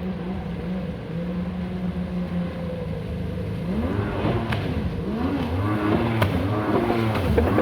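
Jet ski engine running steadily, then revving up and down repeatedly from about halfway in, growing louder toward the end.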